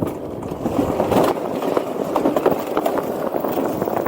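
Mountain coaster cart running fast down its track, its wheels giving a steady rattling rumble with many small clicks.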